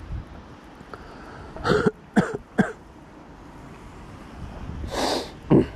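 A man coughing and clearing his throat: three short coughs about two seconds in, then another cough and a throat-clear near the end.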